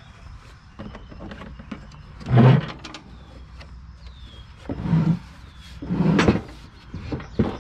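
Metal mower deck of a riding mower being shoved across a wooden board. It scrapes and slides in three loud pushes, the loudest about two seconds in, and a few sharp knocks come near the end.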